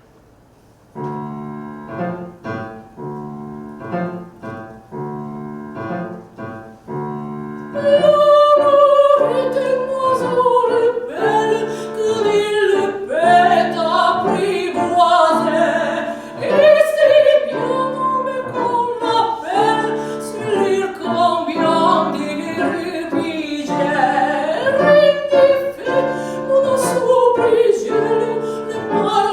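A piano plays a steady, rhythmic introduction of repeated chords, and about eight seconds in a soprano comes in singing an operatic aria over the piano, her first phrases gliding slowly downward.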